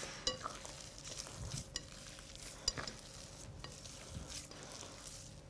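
Hands squeezing and kneading crumbly flour-and-smen dough in a glass bowl, a faint soft squishing and rubbing, with a few light clicks scattered through it.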